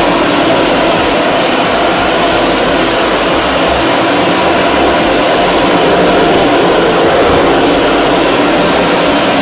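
BaByliss Pro 2000-watt blow dryer running steadily at high power with a constant rushing airflow.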